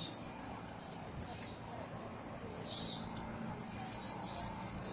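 Flock of pied wagtails calling: short high chirps now and then, coming thicker near the end, over a steady low background hum.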